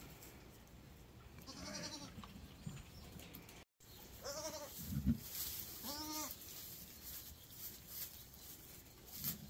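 Sheep bleating: three short, arching calls, about a second and a half in, around four seconds in and around six seconds in. A low thump comes just before the last call and is the loudest sound.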